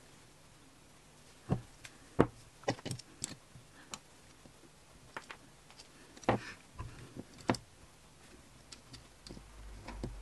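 Scattered sharp clicks and taps of metal tweezers and small plastic LEGO pieces knocking on a tabletop and on each other as bricks are picked up and pressed onto a small model, the loudest about two seconds in and again about six seconds in.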